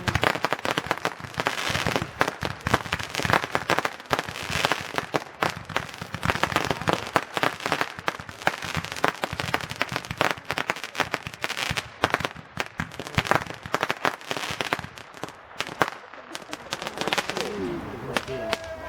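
Firework crackling: a dense, continuous stream of rapid small pops and crackles that thins out near the end.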